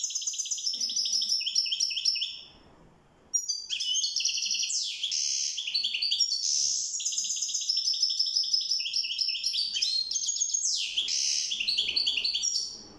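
European goldfinch singing a long, fast twittering song full of rapid trills, breaking off briefly about two seconds in, then resuming and stopping just before the end.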